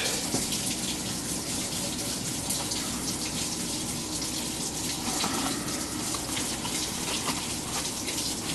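LG top-load washing machine filling with water at the start of a cycle: a steady rush of water spraying into the tub.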